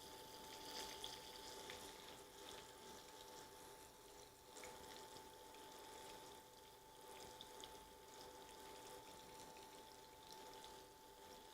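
Faint sizzle and crackle of flour-dredged chicken pieces browning in oil in a pan, with a steady faint high tone underneath.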